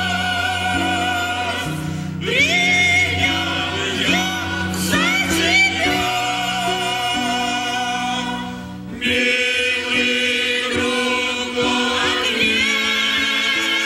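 Mixed church choir of men's and women's voices singing a hymn in parts.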